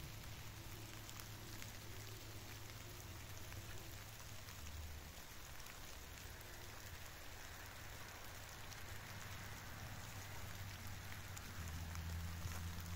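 Light rain pattering steadily on leaves and the ground, a fine even hiss with many tiny drop ticks. A low steady hum grows louder near the end.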